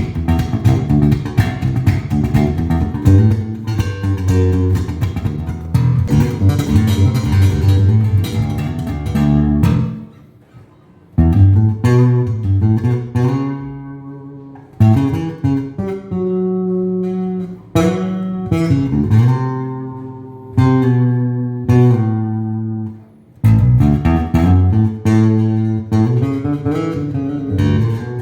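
Gibson Tobias Growler four-string electric bass played solo: quick, busy notes for about ten seconds, a short break, then slower notes left to ring and fade, some of them sliding in pitch.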